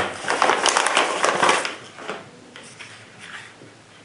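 Clear plastic packaging bag crinkling loudly as it is opened and the holster is pulled out, dropping to faint handling sounds after about two seconds.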